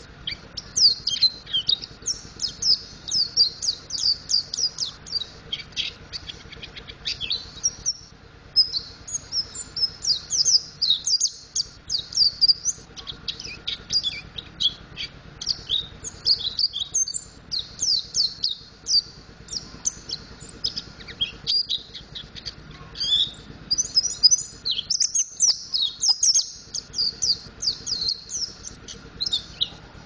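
Mountain white-eye (pleci montanus) singing a long, rapid, high-pitched twittering song of quick chirps, the style keepers call ngriwik, with a short pause about eight seconds in.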